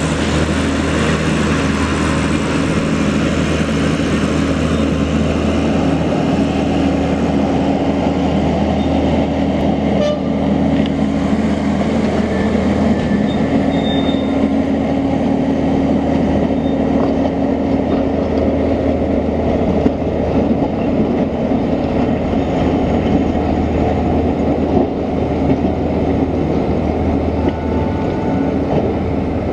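Heritage tram No. 29 running along its track together with the red trailer unit coupled behind it: a steady low hum that holds at an even level, with a few faint higher tones over it.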